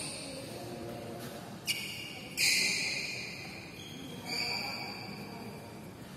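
Badminton rackets striking a shuttlecock three times, each hit a sharp crack that rings on in a large, echoing hall. The second hit is the loudest.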